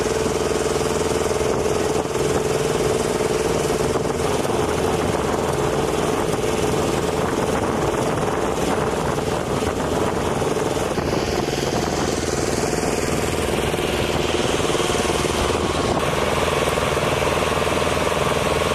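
MHU-83 bomb lift truck's engine running steadily with a constant hum, the sound shifting a little about two thirds of the way through.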